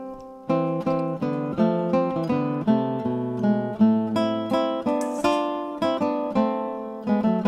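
Background music: acoustic guitar playing plucked notes and strummed chords in a brisk, steady rhythm, with a brief lull just after the start.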